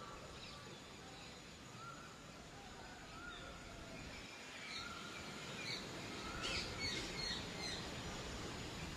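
Small birds chirping with short, quick calls over a steady outdoor background hiss; the chirping gets busier about halfway through.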